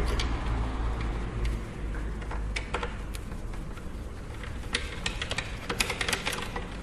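Scattered small clicks and ticks of a Phillips screwdriver and screws being worked out of a PlayStation 3's casing, thickest near the end, over a low steady hum.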